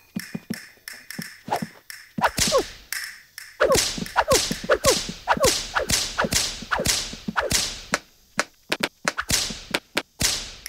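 A fast, irregular string of sharp cartoon whip-crack and slap sound effects, many of them ending in a quick falling pitch.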